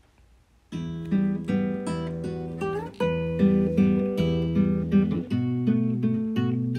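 Background music: acoustic guitar picking notes and chords, starting under a second in.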